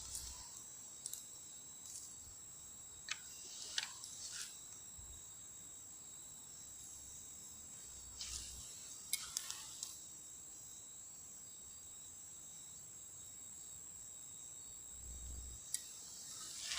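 A steady, faint, high-pitched insect trill, with scattered faint clicks and taps.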